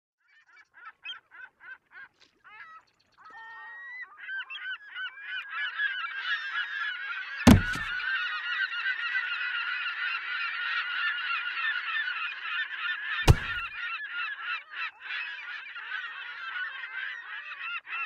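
A flock of birds calling: a few separate calls at first, then many overlapping calls from about four seconds in. Two sharp thuds stand out, about seven and a half and thirteen seconds in.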